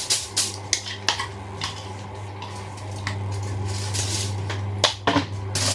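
Metal kitchen tongs clicking and clattering against a plastic mixing bowl and plate as cut vegetables are picked up and tossed: a string of irregular sharp clicks, the loudest about five seconds in.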